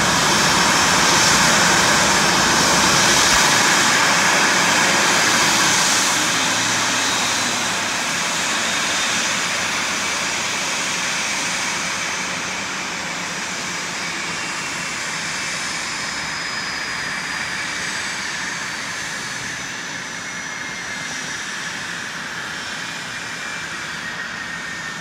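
Ryanair Boeing 737's CFM56 turbofan engines at taxi power: a steady jet whine over a roar. It grows gradually quieter, and the whine drifts slowly lower in pitch as the aircraft rolls slowly onto its stand.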